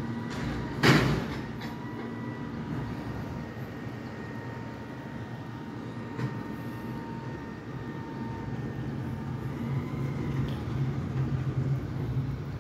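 Mack MRU rear-loader garbage truck with a Heil body working a dumpster pickup: its diesel engine runs with a steady low drone and a steady whine that fades out after about eight seconds. A single loud bang comes about a second in.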